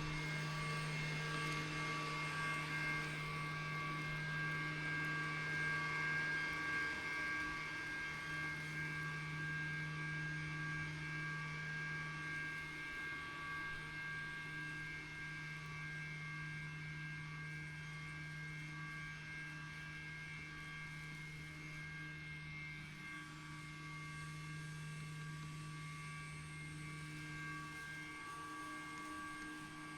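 Lymow One robot lawn mower's electric motors running with a steady hum, slowly getting fainter.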